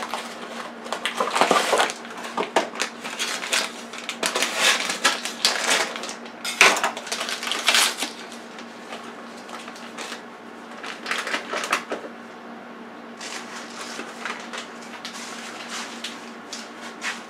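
Crinkling and rustling of a cardboard box of tempura batter mix and its inner bag as they are opened and handled, with irregular crackles and taps, and the dry mix being emptied into a plastic bowl.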